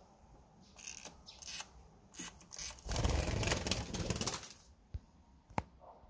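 Pet canary's wings flapping as it flies off, a loud rapid flutter lasting about a second and a half, with a few lighter rustles before it and a sharp click near the end.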